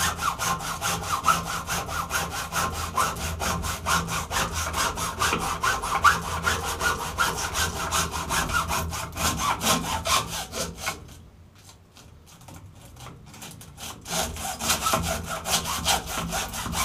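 Hacksaw blade sawing back and forth through the bundled copper end windings of an electric-motor stator, in quick, even strokes. About eleven seconds in the strokes turn lighter and sparser for a few seconds, then pick up again at full pace.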